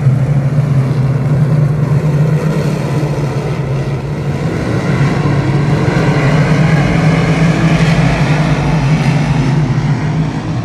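A field of 358 small-block dirt modified race cars racing around a dirt oval, many V8 engines running hard at once in a loud, steady drone.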